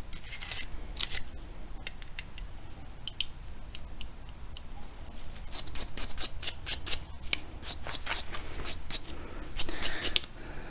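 Brush scrubbing a small metal part of a disassembled .22 rifle's action: quick, scratchy strokes in bouts, sparse at first and busiest past the middle and again near the end.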